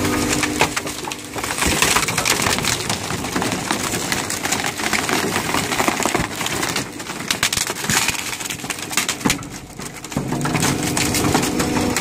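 Waste compactor pressing bulky rubbish, a mattress and wooden furniture, into a steel skip container: continuous crushing with wood cracking and splintering. A steady hum, the compactor's machinery running, is heard near the start and again from about three quarters of the way through.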